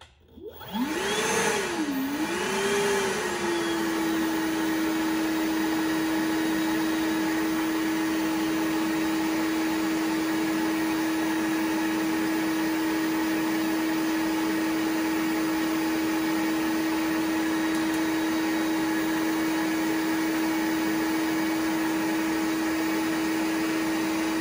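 Milwaukee M18 PACKOUT wet/dry vacuum switched on at its low speed: the motor spins up about a second in, its pitch swinging up and down before settling into a steady hum with rushing air.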